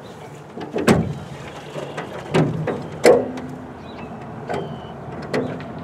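Tiller outboard motor being pull-started by hand: the recoil starter cord is yanked about five times, each pull a sharp rasp. The engine turns over briefly after some pulls but does not catch.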